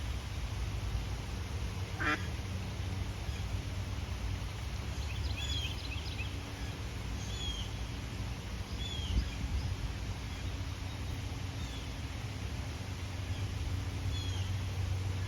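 Ducks quacking, with one loud call about two seconds in, while a small bird chirps short high notes every second or two over a steady low background rumble.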